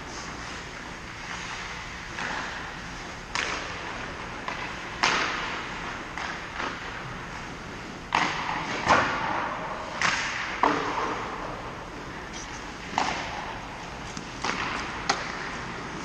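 Ice hockey play echoing in an indoor rink: scattered sharp clacks of sticks, puck and boards, about nine in all at irregular intervals, the loudest about nine seconds in, over a steady hiss.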